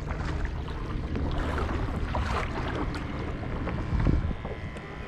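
Wind buffeting the microphone over water splashing around a kayak, with small knocks and a louder low buffet about four seconds in.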